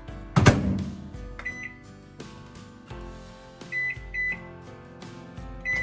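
Microwave oven door shut with a loud clunk about half a second in, then four short, identical high beeps from the keypad as the cook time is entered. Soft background music plays underneath.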